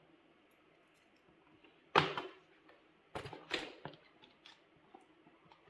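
Hand tools clinking against metal: one sharp clank about two seconds in, then a quick cluster of clicks and a few lighter ticks, as sockets and wrenches are handled while unbolting a motorcycle seat.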